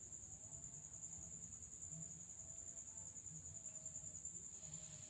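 Quiet room tone with a faint, steady high-pitched whine and a low rumble underneath.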